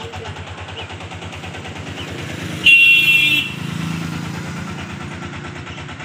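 A road vehicle's engine running with a rapid, even putter. A horn honks once, loud and short, about two and a half seconds in.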